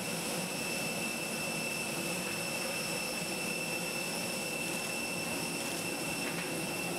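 Jet turbine running steadily, a constant high whine over a broad rush of noise.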